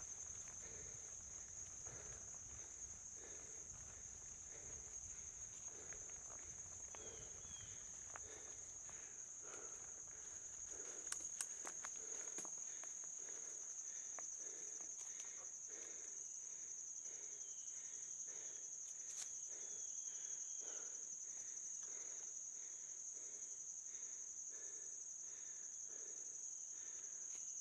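A steady, high-pitched trill of insects in the woods, over the quieter rolling and rattling of a mountain bike on a dirt trail. A low rumble fades about a third of the way in, and a few sharp clicks come near the middle.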